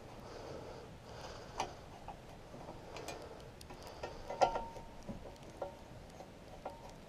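Scattered light clicks and taps of metal light-pole parts being handled, with one sharper metallic tap about four and a half seconds in that rings briefly.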